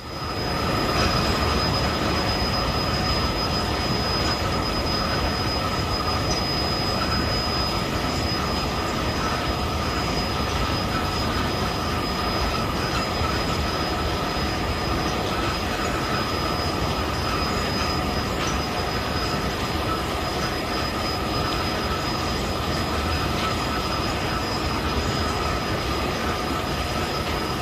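Bucket wheel excavator running: a steady mechanical rumble and grind with a constant high-pitched squealing whine over it, picking up about a second in.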